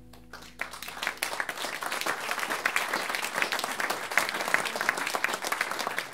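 Audience applause with dense hand clapping, building from about half a second in as the last held chord of the jazz trio dies away.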